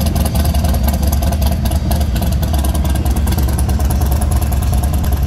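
V-twin engines of Harley-Davidson bagger motorcycles running with a loud, steady low rumble.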